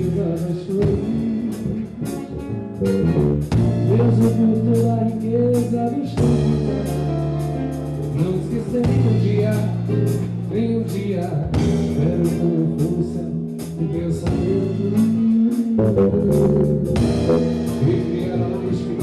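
Band music with guitar, drums and bass, and a singing voice over it.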